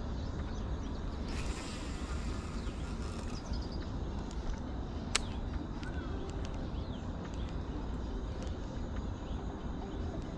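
Outdoor waterside ambience: a steady low rumble with faint bird calls, and a single sharp click about five seconds in.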